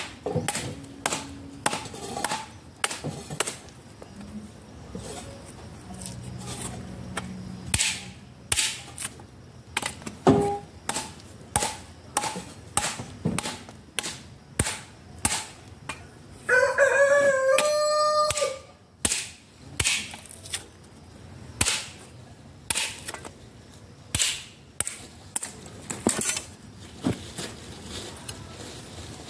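Repeated sharp blows of a hand tool striking a wooden log as its thick bark is chipped away, about one knock a second. A rooster gives one long crow about 17 seconds in, louder than the knocks.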